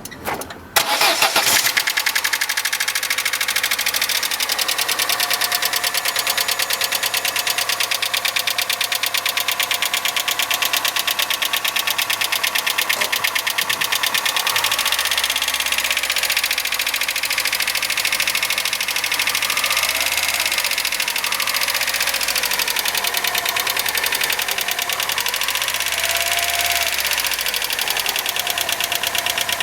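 Opel Astra 1.6-litre four-cylinder petrol engine starting about a second in, then idling with a rapid, even ticking from the valvetrain: worn hydraulic lifters (tappets), the fault that replacing the lifters and oil cured.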